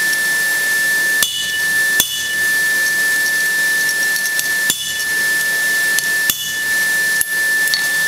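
Hand hammer striking the top die of a guillotine tool on the anvil, about five sharp metallic blows at an uneven pace, each with a short ring, as a red-hot square bar is fullered in the tool. Under the blows runs a steady hiss with a thin high whine.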